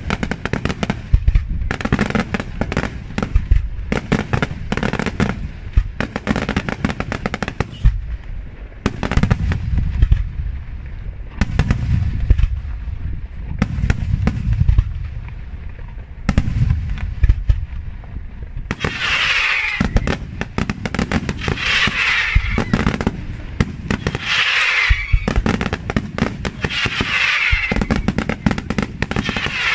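Daytime aerial fireworks: a rapid, nearly continuous barrage of shell bursts, bangs and crackling. From about two-thirds of the way in, a crackling hiss swells every two to three seconds among the bangs.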